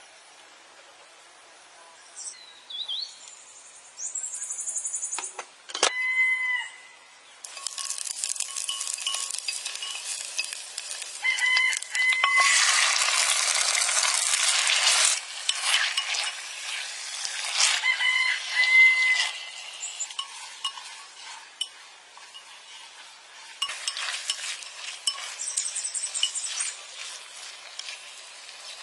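Raw pig trotter pieces being stirred with a wooden spoon and mixed by hand with seasoning in a clay pot, a long stretch of wet mixing and scraping. A rooster crows about three times in the background.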